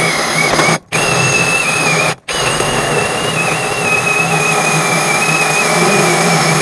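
DeKTON cordless drill turning a core bit through a masonry wall: a steady grinding whine with a high tone that wavers. It cuts out briefly twice near the start, then runs on.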